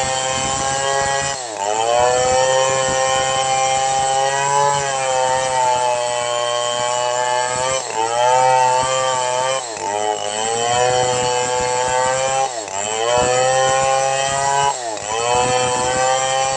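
Stihl MS 500i two-stroke chainsaw running at high revs while ripping a log lengthwise. Its pitch sags sharply and recovers about five times as the chain bogs under load in the cut.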